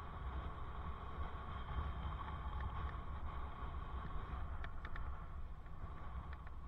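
Wind rushing over a helmet-mounted camera microphone on a moving bicycle, with a steady low rumble of tyres on asphalt and a few light clicks about two-thirds of the way through.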